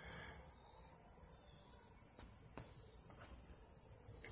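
Faint insects chirping: a quick, even run of short high chirps over a steady high hiss.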